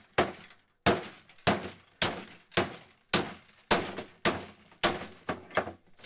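A claw hammer repeatedly striking the metal mechanism of a 1982 Brother Cassette 3912C typewriter, about ten hard blows nearly two a second, with metal and plastic parts breaking and clinking.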